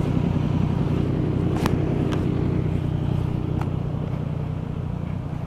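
Motorcycle engine idling with a steady low hum that fades slowly toward the end, with a few sharp clicks in the middle.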